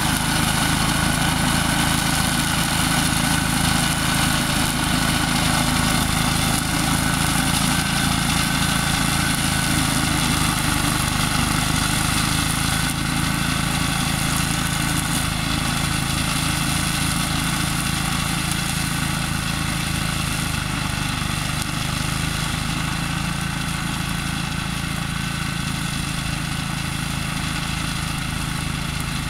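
KAAZ LZ600 walk-behind self-propelled weed mower running steadily under load as it cuts tall weeds, its engine note easing slowly quieter as it moves away.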